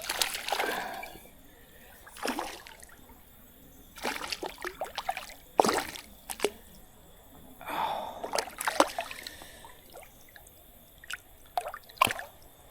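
Creek water splashing and sloshing in a series of short, uneven bursts, with a few sharp clicks between them.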